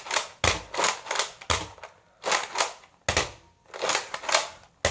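A Nerf Rough Cut toy blaster being handled and worked: a series of sharp plastic clacks and rasps, roughly one a second.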